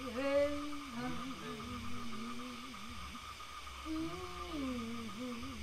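A human voice making a low, wavering moan that slides up and down in pitch, over a steady high held tone: improvised vocal texture rather than speech or song.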